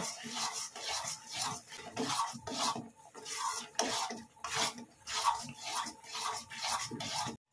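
Metal spatula scraping and stirring a thick coconut-and-mango mixture around a metal kadai, in regular strokes about one and a half a second, as the mango paste is worked in.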